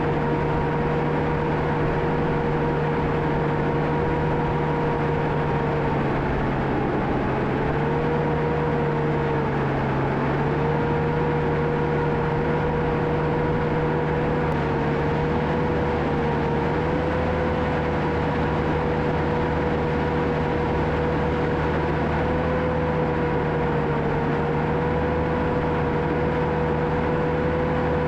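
John Deere 650K crawler dozer's diesel engine running while it works, with a steady high whine over the engine note. The pitch sags briefly twice, about seven and ten seconds in, as the machine takes load.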